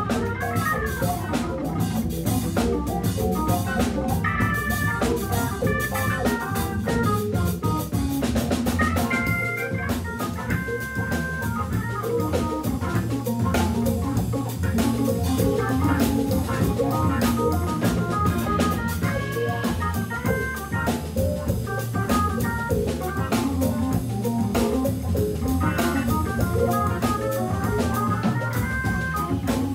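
Live Hammond B3 organ trio playing a funk groove: Hammond organ through a Leslie speaker, with electric guitar and a drum kit keeping a steady beat.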